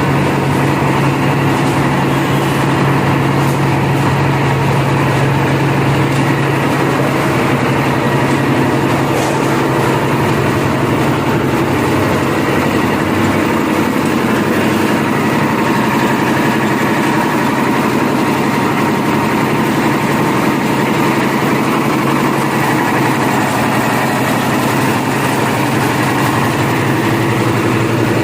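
Concrete mixer machine's engine running steadily with a constant low hum.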